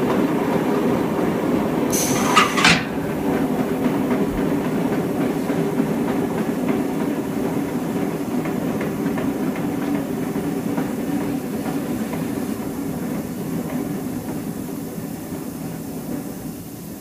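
Centrifugal de-oiling machine spinning a basket of fried snack pieces: a steady motor hum with the food rattling against the drum. A short, sharp high-pitched noise about two seconds in, and the running grows gradually quieter toward the end.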